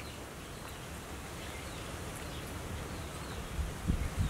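Outdoor ambience: faint, scattered high chirps over a steady low rumble, with a couple of low bumps near the end.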